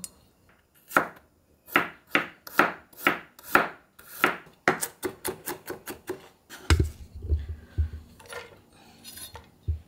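Kitchen knife slicing mushrooms and garlic cloves on a wooden cutting board: a quick run of sharp strikes, about three to five a second, that speeds up in the middle. Near the end, low knocks and scraping as the cut pieces are tipped from the board into a frying pan.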